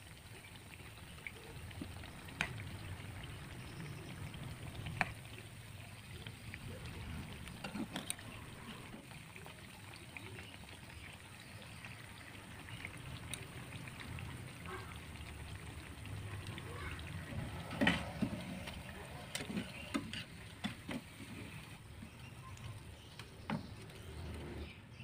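Corn fritters deep-frying in hot oil: a steady bubbling sizzle, with a few sharp clicks of a spatula and skimmer knocking the pan, most of them about eighteen seconds in.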